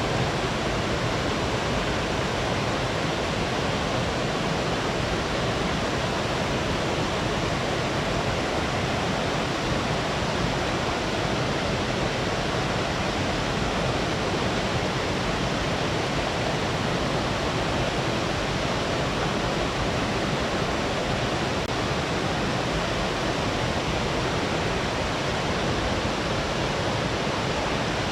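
Small waterfall on a mountain stream, the water rushing and splashing in a steady, even roar with no change in level.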